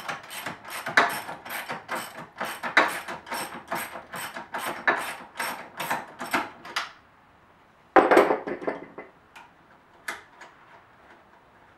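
Ratchet wrench with a 13 mm socket clicking rapidly, about three clicks a second, as a carriage-bolt nut is backed off; the clicking stops about seven seconds in, followed by a single clunk about a second later.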